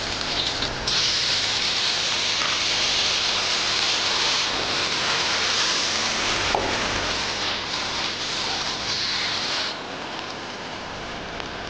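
Hot oil sizzling loudly in a wok as shredded ginger fries, a steady hiss that keeps going as cooking wine and sliced bottle gourd are tipped in. Near the end the sizzle drops to a quieter level.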